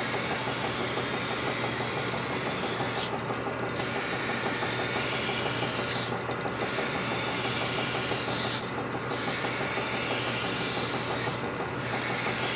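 Coarse sandpaper rubbing on a machined metal part, smoothing out its cutting marks. It makes a continuous hissing scrape, broken by brief pauses about every two and a half to three seconds, over a steady low hum.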